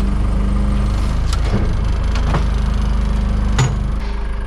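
Wood-Mizer LT50 sawmill engine running steadily under hydraulic load as the log turner strains to roll a heavy redwood log, with a few knocks from the log and mill, the loudest about three and a half seconds in. The engine eases off slightly near the end.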